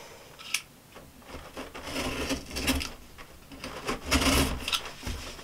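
Utility knife blade scraping and slicing through the packing tape and cardboard of a box, in two stretches of scraping, one about two seconds in and one about four seconds in, with a short click near the start.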